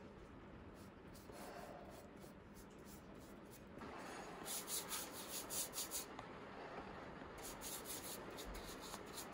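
Round bristle brush rubbed in quick strokes along a wooden axe handle as finish is applied, in two runs of brushing, the first starting about four and a half seconds in and the second about seven seconds in.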